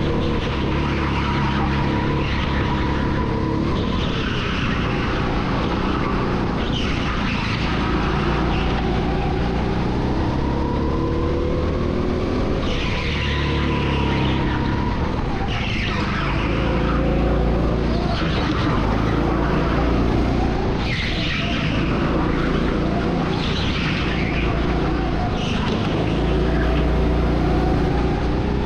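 Onboard sound of a rental go-kart lapping at speed: its motor note rises and falls with the throttle, and short bursts of tyre squeal come in the corners every few seconds.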